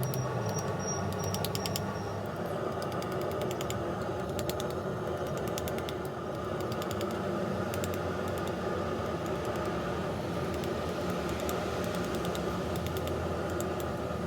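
Steady mechanical rushing noise, like a forge blower or fan, with clusters of faint, quick taps as the hot corkscrew coil is worked. There are no heavy hammer blows.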